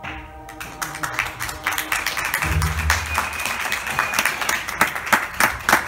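Audience applauding in a large hall, dense irregular clapping, with a low thump about two and a half seconds in.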